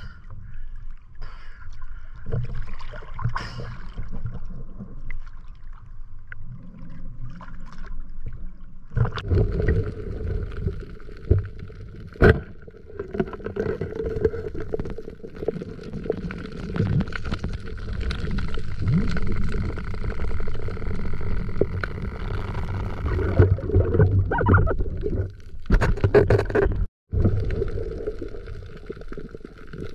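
Muffled underwater sound picked up through a camera housing: water swirling and gurgling around the diver, with a steady low hum that comes in about nine seconds in and a few sharp knocks.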